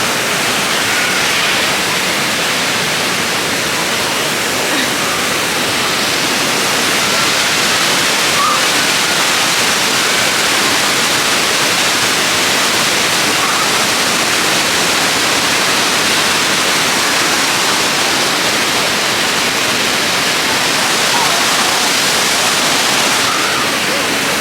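Waterfall rushing steadily: an even, loud wash of falling water.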